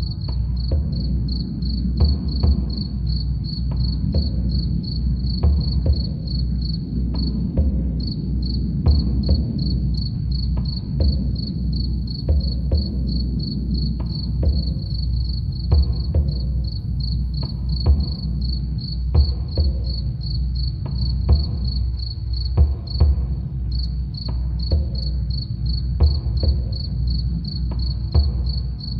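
Crickets chirping in a rapid, even pulsing trill that pauses briefly twice, over low drum hits.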